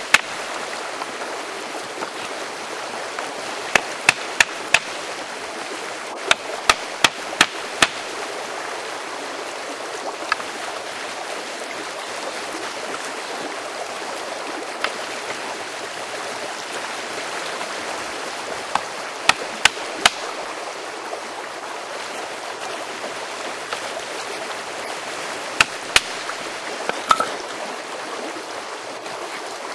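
A creek running steadily, with sharp knocks from stone tools striking, a few times in quick runs of three to five and now and then singly.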